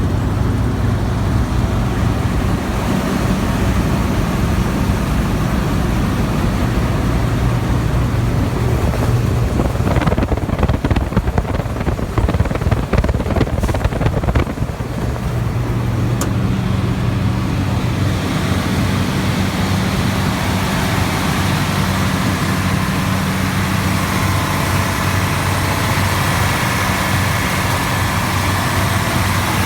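New Holland TX68 combine harvester's Iveco 9.6-litre turbocharged six-cylinder diesel idling with a steady low hum. About ten seconds in there are several seconds of louder, irregular noise, and near the end a faint higher tone joins in.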